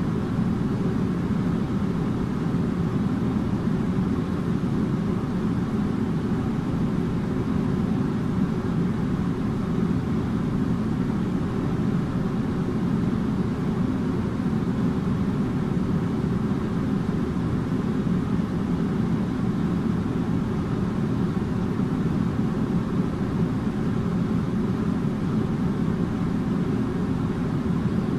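Air conditioner running steadily: an even low hum and whoosh, with a faint steady tone.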